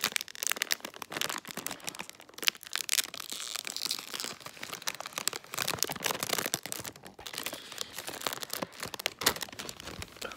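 Crinkly Holy Corn popcorn bag being torn open and handled, a dense crackling with many sharp crinkles. The packaging rustles very loudly.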